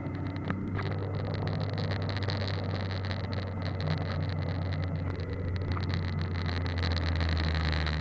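Car engine and tyres on a gravel road heard from inside the cabin: a steady low engine drone under a constant rushing road noise with faint ticks of grit against the car.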